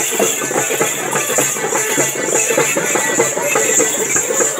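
Festival folk drumming: drums and rattling percussion beaten in a fast, dense rhythm.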